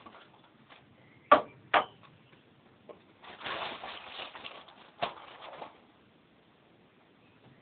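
Two sharp knocks about half a second apart, then a couple of seconds of rustling and clattering with one more knock, as things are handled in a small room.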